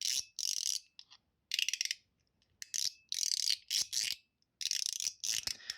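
Spring-and-ball mechanical fidget slider being slid back and forth, giving short bursts of crisp, high-pitched clicking, about eight slides. It is tuned to be 'super crispy' and is loud.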